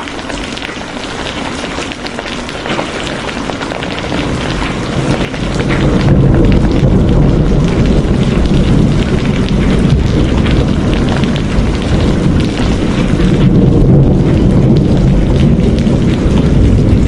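Steady rain hiss, joined about five seconds in by a deep, rolling rumble of thunder that swells and keeps going while the higher rain sound fades back.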